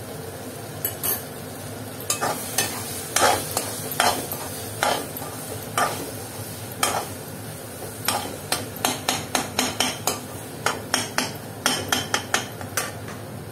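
Steel spoon stirring and scraping potato-tomato chaat in a stainless steel kadhai, with sharp clinks of the spoon against the pan that come faster, about three or four a second, in the second half. A steady frying sizzle runs underneath.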